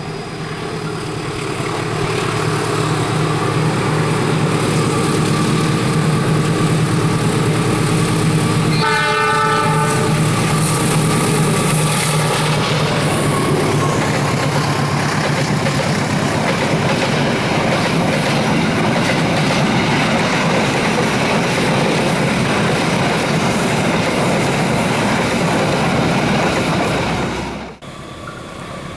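Diesel-hauled Argo Lawu express passenger train crossing a steel girder bridge. The locomotive's engine drone builds, then one horn blast of about a second sounds about nine seconds in. The long rumble and clatter of the passenger cars rolling over the bridge follows and cuts off shortly before the end.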